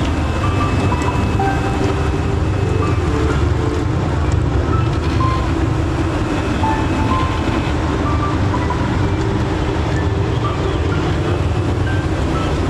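Jeep Cherokee Trailhawk driving on a rough off-road trail: a steady rumble of engine and tyres. Short, faint high tones come and go throughout.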